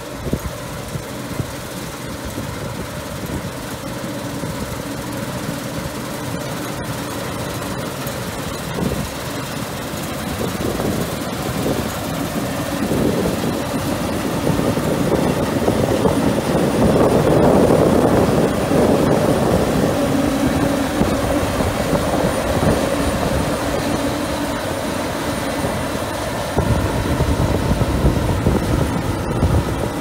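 CLAAS Lexion 530 combine harvester working through spring barley, its engine and threshing machinery running under load. The steady mechanical sound grows louder to a peak just past the middle as the machine passes close, then eases a little.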